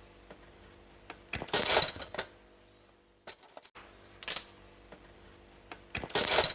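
A spoon clinking and scraping against a small glass in three short bouts, with a bright ping of glass a couple of times, as olive oil is stirred into crushed garlic and honey.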